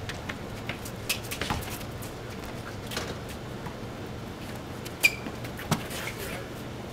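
Scattered scuffs and knocks of sneakers and a basketball on a concrete driveway during a pickup game, over a steady low hum. The loudest is a sharp knock with a brief squeak about five seconds in, followed by another knock shortly after.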